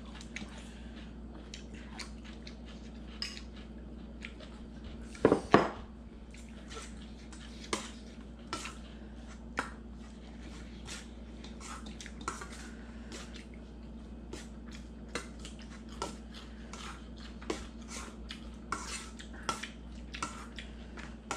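Ceramic bowls and a metal spoon clinking and tapping on a wooden table during a meal: scattered small clicks throughout, with two loud knocks close together about five seconds in.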